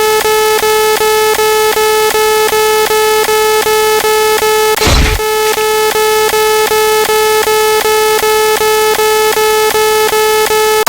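Electronic sound effect: a buzzy synthesized tone pulsing about four times a second, with a brief noisy burst about five seconds in.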